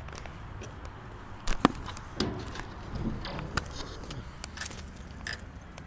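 Hands working a Kenworth W900L's hood latch: a series of metal-and-rubber clicks and knocks, the loudest about a second and a half in.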